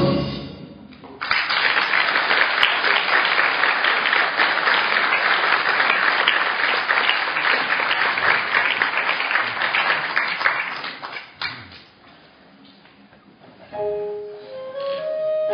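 Audience applauding in a theatre for about ten seconds after a sung duet ends, the clapping fading out. Near the end a piano starts playing slow, held notes.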